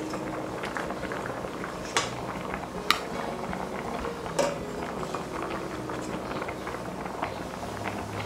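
A stainless-steel pot of mung beans boiling with steady bubbling, while a metal spoon skims the foam off the top. The spoon clinks sharply against the pot three times, about 2, 3 and 4.5 seconds in.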